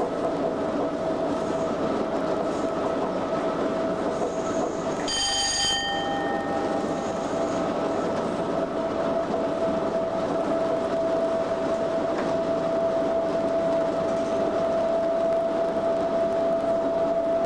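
Cab of a British Rail Class 87 electric locomotive running at speed: continuous running noise with a steady whine. About five seconds in, a short high ringing tone sounds over it.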